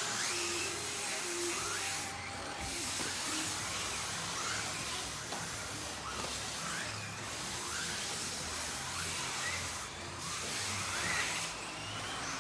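Electric motor of a SWORKz S14-3 4WD RC buggy whining, its pitch rising and falling again and again as it accelerates and brakes, over a steady hiss.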